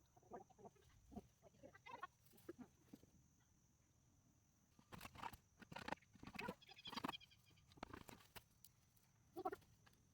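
Backyard chickens making soft, scattered clucks, with a cluster of louder short scratchy noises in the middle.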